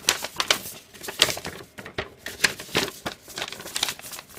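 Paper instruction sheets rustling and crinkling as they are handled and folded, with many irregular sharp ticks and taps.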